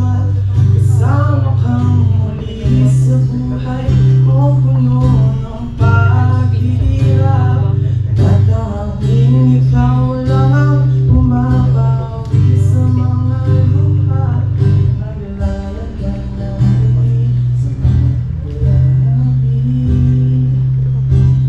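A singer performing a song live while playing an acoustic guitar, with a steady bass line under the sung melody.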